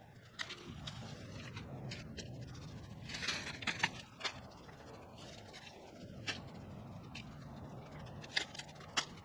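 Faint scattered clicks and scrapes, about a dozen short sharp ones, over a low steady background; no chainsaw is running.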